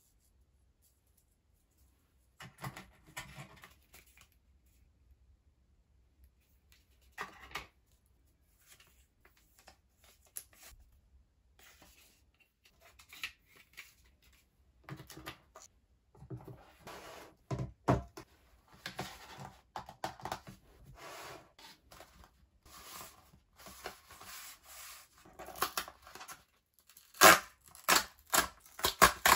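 Close-up paper and cardboard handling: the paper inserts of a phone box being taken out and handled in short scrapes and clicks, then a cardboard screen-protector box being torn open at its tab, with the loudest sharp tearing snaps near the end.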